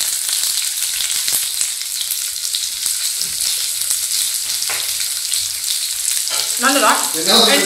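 Food frying in hot oil in a pan: a steady sizzle, with a voice coming in near the end.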